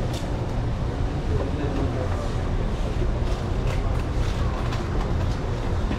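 Busy eatery background noise: indistinct voices over a steady low rumble, with a few faint clicks.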